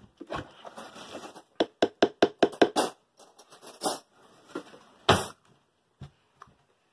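A cooking spoon stirs thick stew in a metal pot, then knocks quickly against the pot about seven times. A few single knocks follow, the loudest about five seconds in.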